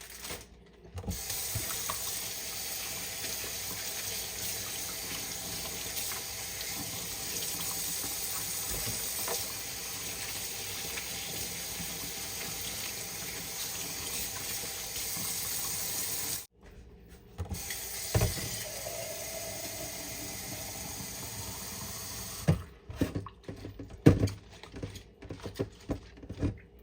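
Water running steadily from a kitchen tap into a sink while produce is rinsed. The flow cuts off for about a second some two-thirds of the way through, runs again for a few seconds, then stops, followed by several knocks and clatters.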